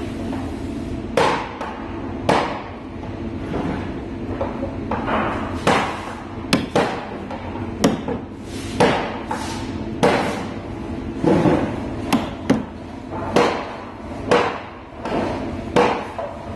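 A small hammer strikes a wood chisel about a dozen times at uneven spacing, with short sharp taps. The chisel is cutting off the protruding oak spline that was driven in to seal a leak in the wooden barrel.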